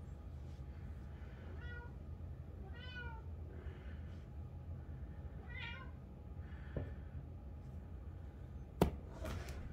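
Kitten meowing: three short meows spread a couple of seconds apart. Near the end comes one sharp knock, the loudest sound here.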